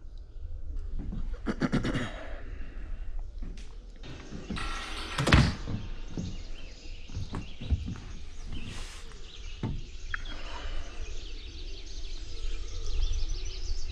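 A door being opened and shut with a loud thunk about five seconds in, amid knocks and clicks of handling and steps. Birds chirp faintly outdoors afterwards.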